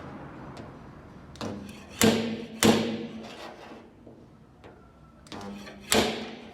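Sharp metallic knocks with a brief ring of sheet metal, in two groups: a light one then two hard ones, and after a pause a light one and a hard one. This is a stud-welder dent puller working on a small dent in car body steel.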